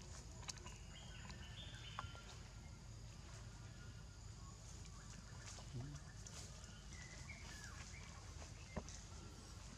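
Quiet forest ambience: a steady high hiss with faint, thin bird calls that step up in pitch about a second in and again near the end, plus a few small isolated clicks.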